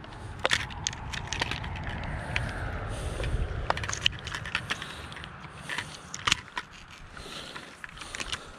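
Close handling noise as a fish is set on a hand scale: scattered clicks, scrapes and crackles over a low rumble, loudest about two to four seconds in.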